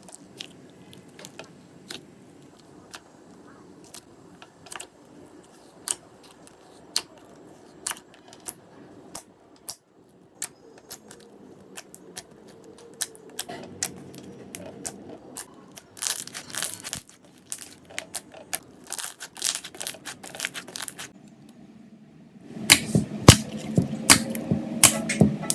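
Slime being squished and poked by hand, making scattered sharp clicks and pops. A denser run of crackling comes about two-thirds of the way in, and louder, closer popping comes near the end.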